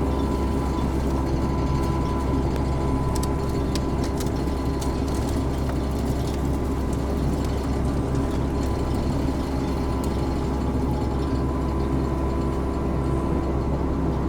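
Compact excavator's diesel engine running steadily under the operator, with a thin steady whine and scattered faint clicks.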